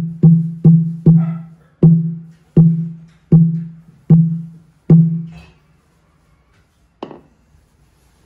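Large jackfruit-wood temple wooden fish (mõ tụng kinh) struck with a padded mallet: low, hollow knocks that each ring briefly. The strokes slow from about two and a half a second to about one a second over eight strikes and stop about five seconds in.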